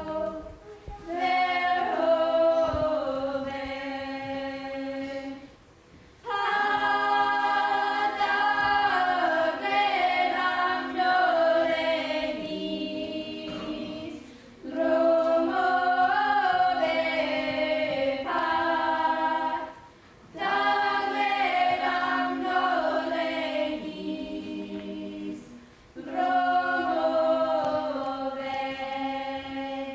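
A few girls' voices singing together unaccompanied, in long held notes. The phrases last several seconds each, with short breaths between them.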